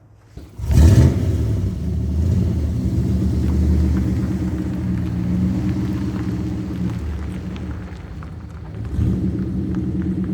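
A 1998 Dodge Dakota's 5.2-litre (318) V8 starting up and settling into a steady idle. The engine note rises again about nine seconds in.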